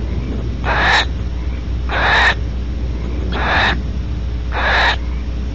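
Barn owl giving four rasping wheeze calls, each under half a second long and a little over a second apart, over a steady low hum.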